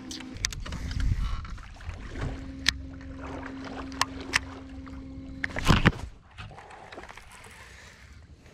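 Sounds of fishing from a boat: rod and reel handling with several sharp clicks over a steady hum, and one louder rushing burst about six seconds in.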